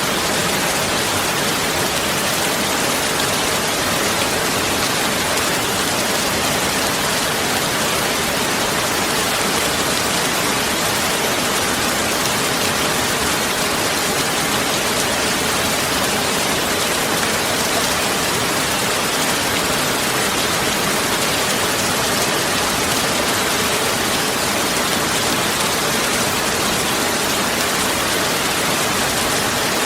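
Heavy rain falling steadily, a dense even hiss of drops with no breaks or single distinct impacts.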